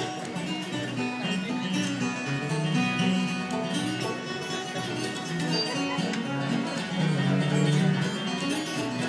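Live acoustic bluegrass band playing, with picked acoustic guitar and other plucked string instruments.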